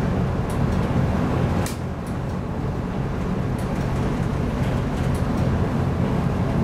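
Steady low drone of a ship's engine, felt through the hull, mixed with the rush of wind and sea in a storm. A few faint ticks are scattered through it, and it dips slightly about two seconds in.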